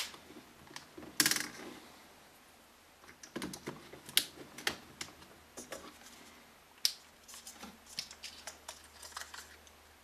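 Sony A6000 camera being handled on a wooden tabletop: scattered small plastic clicks, taps and light rattles, with a louder cluster of clicks about a second in and a busy run of them through the second half.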